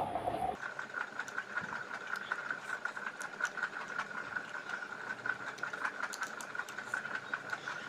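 Eating sounds: soft chewing and mouth clicks while eating rice and greens by hand, over a steady high-pitched hum.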